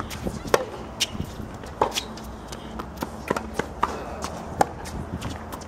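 Tennis ball struck by rackets and bouncing on a hard court during a rally: a string of sharp pops at uneven intervals.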